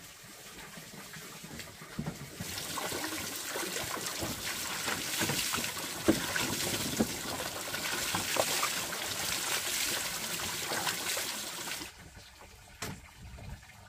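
Water pouring and splashing, building over the first couple of seconds and stopping suddenly near the end, followed by a single sharp knock.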